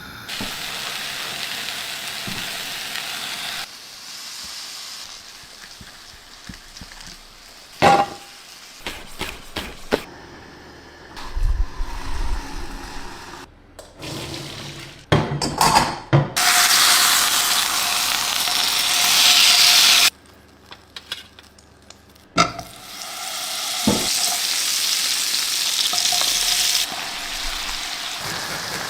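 Food frying in a hot pan, a steady sizzle that breaks off and comes back several times, loudest for a few seconds past the middle, with clinks and scrapes of utensils against the pan in between.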